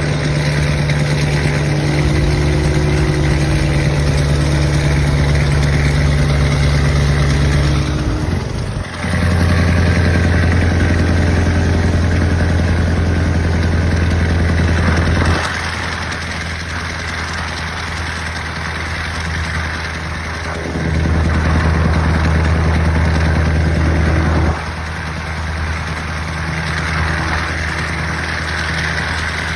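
Scania V8 diesel truck engine running with a deep, steady rumble. It swells louder and drops back in steps every few seconds, with little change in pitch.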